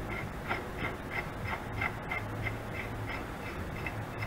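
Short, high squeaks repeating about three times a second over a low steady hum.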